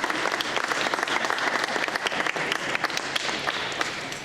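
An audience of students and parents clapping steadily for a certificate recipient, a dense patter of many hands that stops at the end.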